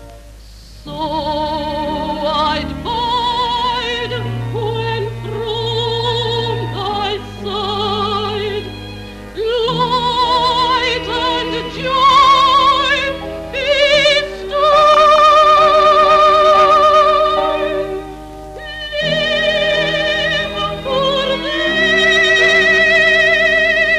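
A woman singing in a trained, operatic style with strong vibrato, holding long notes in phrases broken by short pauses for breath, over an accompaniment of steady held lower notes.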